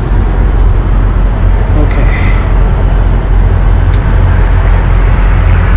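Loud, steady low rumble of idling diesel truck engines, with a rushing hiss over it.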